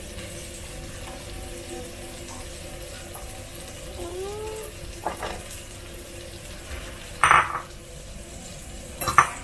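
Pot of water at a rolling boil with baby carrots in it, a steady bubbling hiss. Two sharp clatters of kitchenware come near the end, about two seconds apart.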